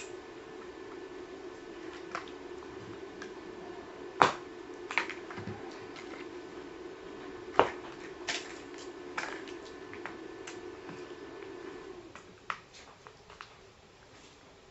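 Plastic snack wrappers rustling and crinkling as they are opened by hand, with scattered sharp clicks and snaps, over a steady low hum that stops about twelve seconds in.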